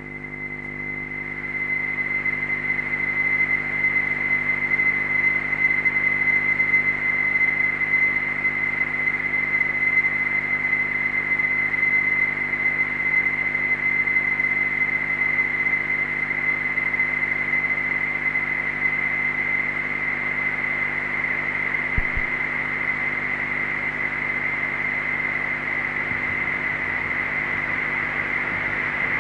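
Electronic noise drone from a matrix mixer and synth setup: a steady, piercing high whistle-like tone over a hissing wash and low held tones. It swells in over the first two seconds and then holds steady.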